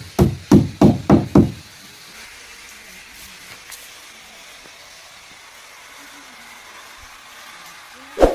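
A run of hard, evenly spaced knocks, about three or four a second, which stops about a second and a half in. One more loud knock comes near the end.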